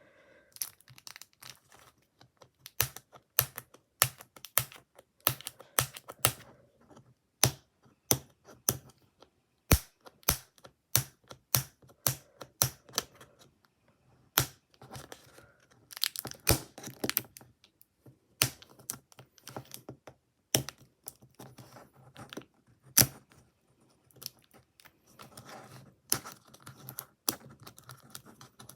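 A plastic toy surprise egg being unwrapped and opened by hand: irregular sharp plastic clicks and taps with crinkling of the wrapper in between.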